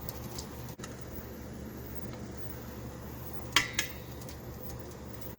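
A kitchen utensil clinks sharply against cookware twice in quick succession about three and a half seconds in, over a steady low hum, as blanched peaches are moved into cold water.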